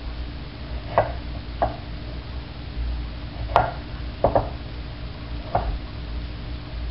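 Chef's knife cutting blanched tomato on a cutting board: about six separate, irregularly spaced knocks as the blade hits the board.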